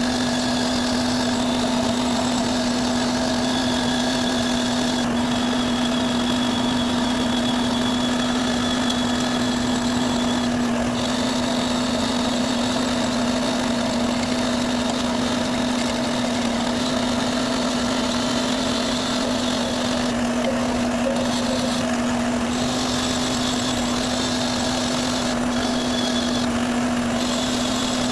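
Electric bench buffing wheel running steadily with a constant motor hum, while a rusty metal part is held against the wheel to clean the rust off, the higher scrubbing hiss dropping out briefly a few times.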